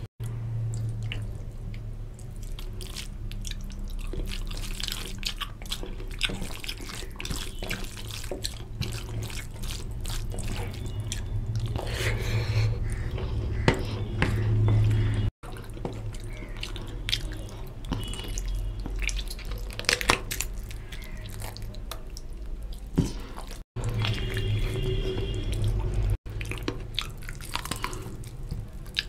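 Close-miked eating by hand: wet squishing and smacking of fingers mixing rice into oily mutton curry, and chewing and sucking of meat from a goat leg bone, over a steady low hum. The sound cuts out abruptly for a moment a few times.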